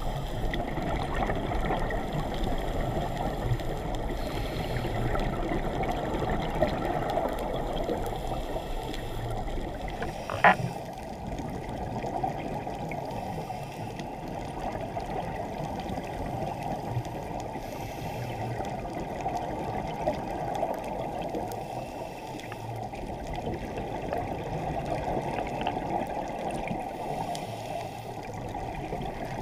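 Muffled underwater rush picked up by a GoPro sealed in its waterproof housing, a steady dull noise with little treble. A single sharp click comes about ten seconds in.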